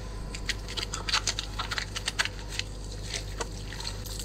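Water splashing and dripping in quick, irregular patters over a steady low hum.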